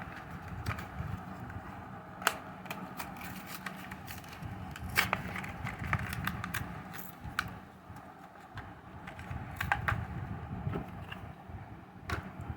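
Hands opening a die-cast toy car's cardboard-and-plastic blister pack: irregular clicks and crackles of the plastic blister being pried and torn from the card.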